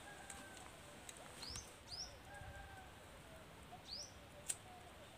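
Faint wild birds calling: three short, high chirps, two close together and one a couple of seconds later, over faint, drawn-out whistled notes lower down. A single sharp click about four and a half seconds in.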